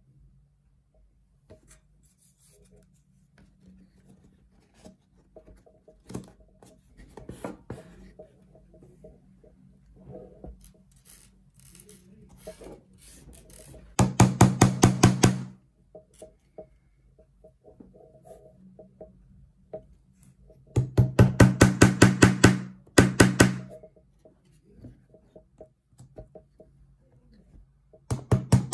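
Small hammer tapping frame tacks into a wooden Hoffman beehive frame, in quick runs of light strikes, several a second. The runs come about halfway through, again a little later, and at the very end, with quieter handling clicks between them.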